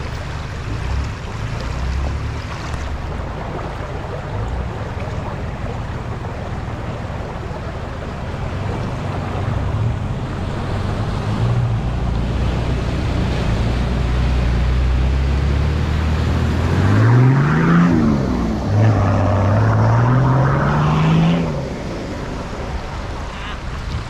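A four-wheel drive's engine running over a steady rush of river water, then revving hard twice near the end, each rev climbing and dropping back, as the vehicle sits stuck mid-river.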